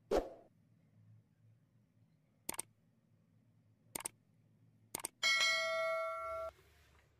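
Like-and-subscribe overlay sound effects: a short pop as the box appears, then three mouse clicks a second or so apart, then a notification bell ringing for over a second before cutting off suddenly.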